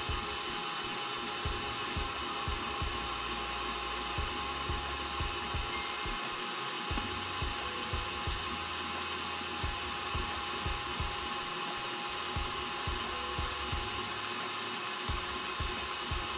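KitchenAid stand mixer motor running at a steady speed with a constant whine, beating thick cream cheese cheesecake batter in its steel bowl.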